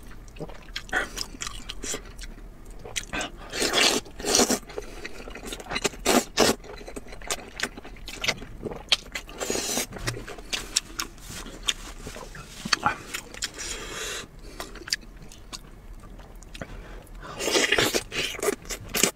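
Close-up eating sounds: slurping wide flat noodles and chewing with wet mouth clicks and smacks, in several louder bursts. Near the end, biting and tearing meat off a braised lamb leg.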